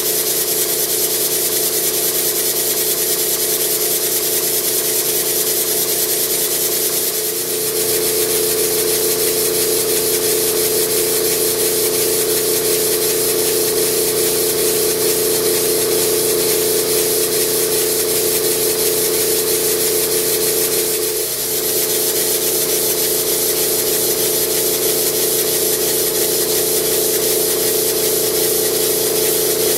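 Model pumping engine built to Elmer Verburg's design, running steadily: a continuous hiss of exhaust with mechanical running noise and a few steady tones beneath. The sound dips briefly twice.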